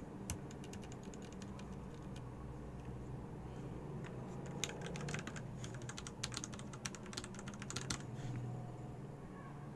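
Typing on an RK61 60% mechanical keyboard with red (linear) switches. A few scattered keystrokes come first, then a quicker run of key presses from about halfway through until near the end.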